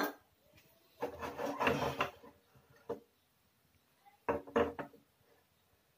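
Cooking utensils being handled at the stove, a spatula and a non-stick wok: two short bouts of rubbing and knocking, about a second in and again near four seconds.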